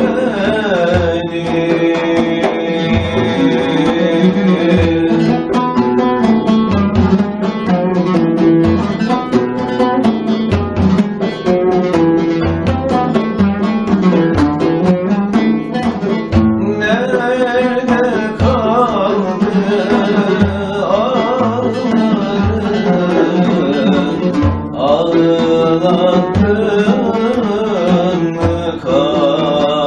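A man sings a Turkish song to an oud and a large frame drum, which beats a steady rhythm. Around the middle the voice drops out for a while and the oud carries the tune.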